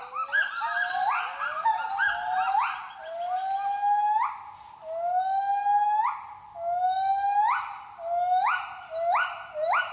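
Gibbon singing: a series of loud whooping calls, each sliding upward in pitch, about one a second and overlapping at first, quickening into a fast trill at the very end.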